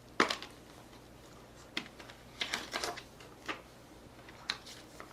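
Plastic Blu-ray case being handled and opened: a sharp click about a quarter second in, then a scatter of lighter clicks and taps.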